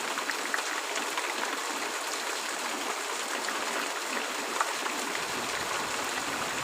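Steady rain: an even hiss with scattered short ticks of drops.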